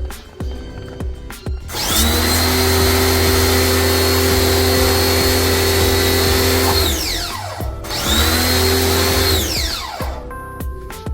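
Electric motor of a handheld power tool spinning up, running steadily for about five seconds and winding down, then a shorter second run that also winds down.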